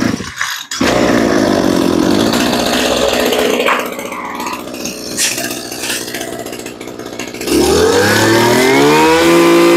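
Mitsubishi 26cc two-stroke brush cutter engine running: it runs hard, eases off to a lower speed about four seconds in, then is throttled up with a rising whine near the end and holds at high revs.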